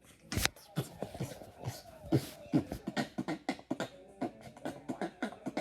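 A child beatboxing the techno bass: a fast beat of sharp mouth-made hits mixed with bass tones that slide downward in pitch.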